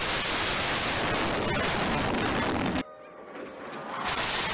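Fighter jet engine roar during a flypast, a loud, even rushing noise. About three seconds in it cuts off abruptly to a quieter stretch with a faint gliding whine, and the roar comes back about a second later.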